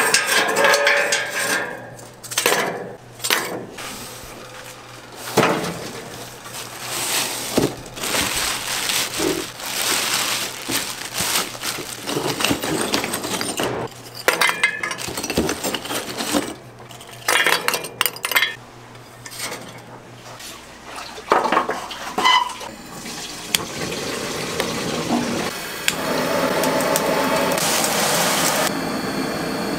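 Kitchen work sounds: dishes and utensils clattering and clinking in irregular knocks, giving way to a steadier rushing noise in the last few seconds.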